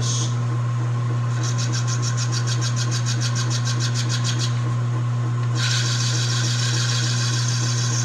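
South Bend 13-inch metal lathe running with a steady motor hum while a carbide-insert tool takes a light finishing cut across bronze stock. The cut starts as a rapid, even ticking, about eight a second, then, past halfway, turns into a steady hiss as the tool cuts all the way round.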